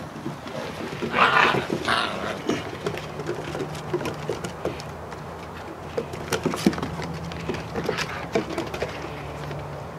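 Puppies playing on a wooden deck: paws and claws pattering and clicking on the boards, with a louder short burst of noise about a second in.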